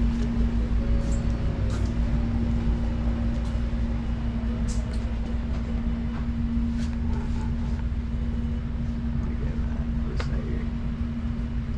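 Steady low rumble with a droning hum, and a few faint clicks.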